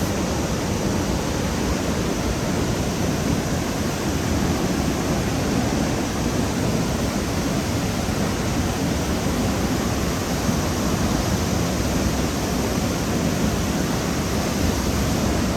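Haew Narok waterfall, a large cascade, giving a steady, unbroken rush of heavy falling water.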